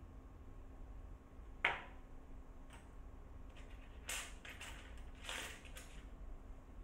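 Small metal manicure tools clicking and clinking as they are handled on a table: one sharp click about a second and a half in, then a run of lighter clicks and rattles from about four seconds in.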